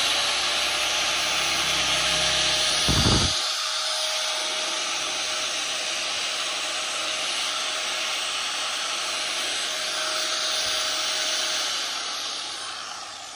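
A 2001 Hitachi G10SH2 100 mm angle grinder (100 V, 670 W, 12,000 rpm) running free with no disc fitted: a steady high-speed whine and rush of air, with a brief knock about three seconds in. Near the end it is switched off and winds down.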